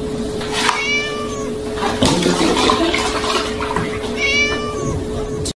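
A kitten meowing twice, about a second in and again near the end, over the splash of milk being poured into a plastic tub, with a steady hum underneath.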